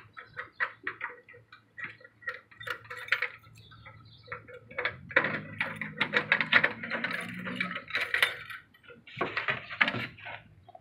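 A ring of keys jangling and clicking against metal as a key is worked into the lock of a metal cluster mailbox compartment. Near the end the small metal door swings open and paper mail rustles.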